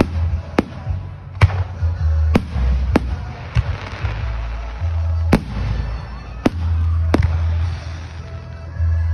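Aerial firework shells bursting overhead in a fast display: about eight sharp bangs, unevenly spaced, over a continuous low rumble.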